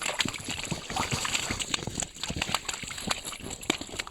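Irregular wet splashing and slapping with short knocks: a freshly hooked trout being hauled out through an ice-fishing hole and flopping in slush and water on the ice.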